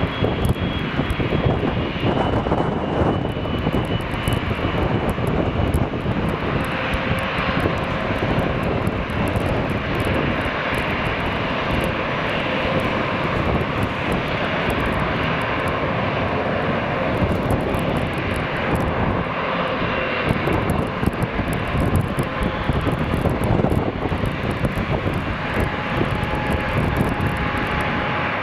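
Jet engines running: a steady rush of turbofan noise with faint high whines, first from a jet airliner on its landing roll and then from a twin-engine business jet taxiing onto the runway.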